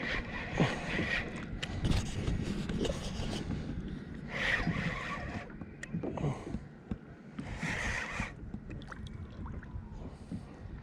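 Irregular scraping and knocking of handling on a kayak, with water sounds; two louder hissing rushes come about four and eight seconds in.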